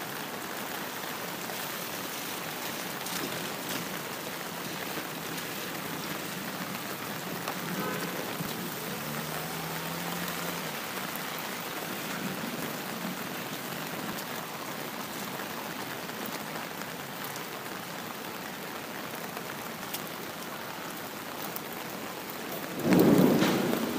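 Steady rain falling, with a sudden loud clap of thunder near the end that dies away over about a second.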